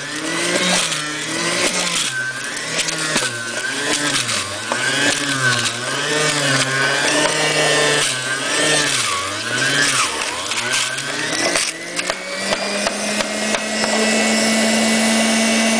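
Electric centrifugal juicer running, its motor's pitch repeatedly sagging and recovering as vegetables are pushed into it under load, with chunks clattering against the spinning basket. About twelve seconds in, the pitch rises and holds steady as the juicer spins without load.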